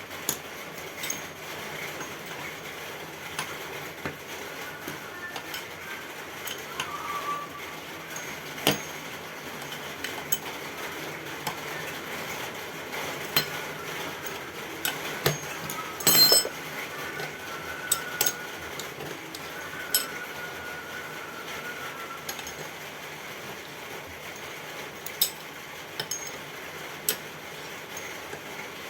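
Scattered metallic clinks and knocks of hand tools and suspension parts being handled, with a louder ringing clank about sixteen seconds in and a few faint short squeaks.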